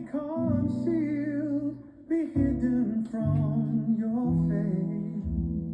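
Background music: a song with a voice singing over plucked guitar.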